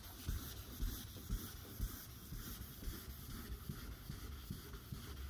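Sanding block wet-sanding the painted body panel of a 1996 Cadillac Fleetwood lowrider, the paper swishing steadily over soapy-water-lubricated paint, with light irregular knocks from the block and hands.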